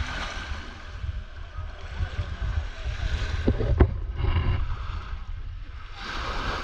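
Shallow sea water lapping and sloshing around a camera held near the surface, with wind buffeting the microphone as an uneven low rumble. A couple of sharp knocks come about three and a half seconds in.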